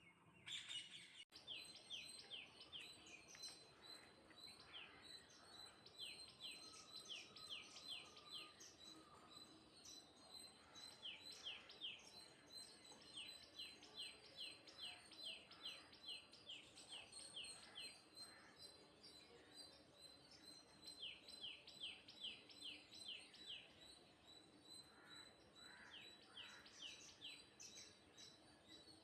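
Small birds chirping faintly in quick runs of short, downward-sweeping chirps, several a second, with pauses between the runs, over a faint steady high tone.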